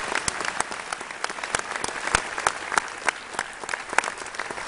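Audience applauding: a steady patter of many hands, with individual sharp claps standing out.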